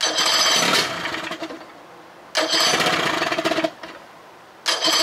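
2000 Johnson 25 hp two-stroke outboard being cranked in three short bursts of about a second each, turning over without catching, while its newly fitted second-hand ignition parts are being tested.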